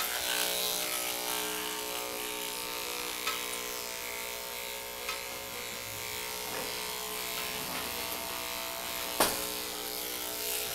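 Electric grooming clippers running steadily as they shave a dog's coat, a constant motor buzz, with a few light clicks and one sharp knock about nine seconds in.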